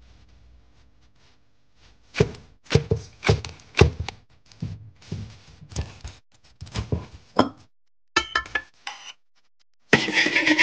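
An irregular run of sharp knocks and thuds, about three a second for some five seconds, starting about two seconds in; near the end a loud, dense burst of noise begins.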